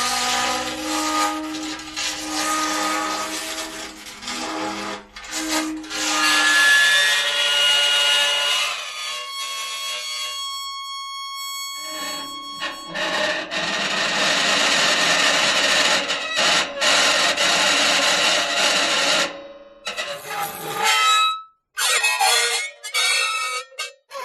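Metal rubbing against metal in a run of separate takes: pitched squeals and screeches alternate with harsh scraping. A long scrape stops abruptly near the middle, and short choppy scrapes follow near the end.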